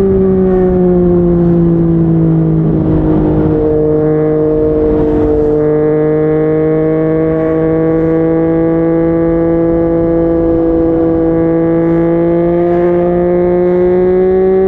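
Yamaha MT-09's inline-three engine through a Yoshimura R55 slip-on exhaust, running steadily under way. The engine note sinks over the first few seconds as the throttle eases, then climbs slowly again as it pulls. A brief rushing noise rises and fades a few seconds in.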